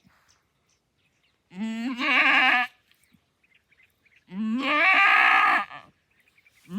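A goat bleating: two long, loud, wavering bleats a couple of seconds apart, with a third starting near the end. It is a doe in a slow, difficult labour, with the kid not yet delivered.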